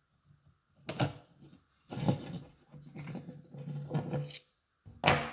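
Handling of a small plastic pocket spirit level and a precision screwdriver on a wooden board: a sharp knock about a second in, scraping and rubbing for a couple of seconds, then a sharp click near the end.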